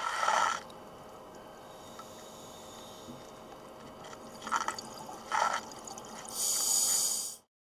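Underwater audio through a camcorder housing: a scuba diver's exhaled bubbles from the regulator. There is a bubbling burst at the start, two short gurgles past the middle, and a longer rush of bubbles near the end that cuts off suddenly, over a faint steady hiss.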